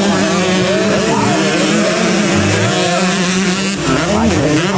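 Several racing motorcycle engines running hard together, their overlapping pitches rising and falling.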